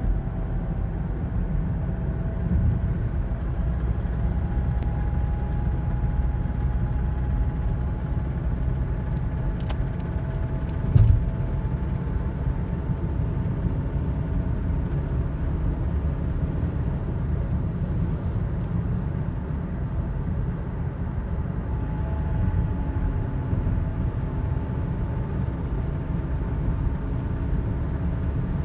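A 2009 Toyota Corolla driving, its engine running under a steady low rumble, with faint engine tones slowly shifting in pitch and a single thump about eleven seconds in. The owner reports an intermittent knocking rattle on acceleration at 20–50 mph, left after a cylinder 4 misfire code (P0304) that new spark plugs and a coil did not cure.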